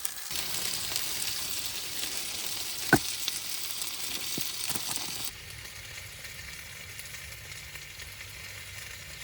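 Dak-galbi sizzling steadily in a hot pan, with one sharp tap of a utensil about three seconds in and a couple of lighter taps just after. The sizzle drops a little in loudness past the middle.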